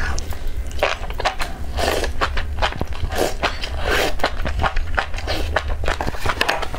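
A person slurping and chewing a mouthful of enoki mushrooms in spicy broth: repeated wet sucking slurps with many small mouth clicks.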